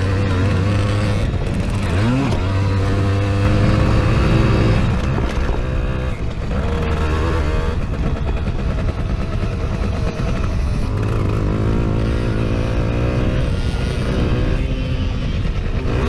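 Simson moped's two-stroke single-cylinder engine running under load, heard up close from onboard. Its pitch rises and falls with the throttle, with a quick rev about two seconds in.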